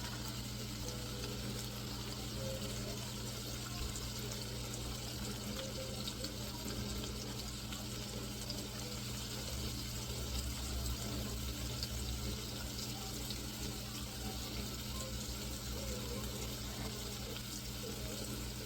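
Tap water running steadily into a sink, over a low steady hum.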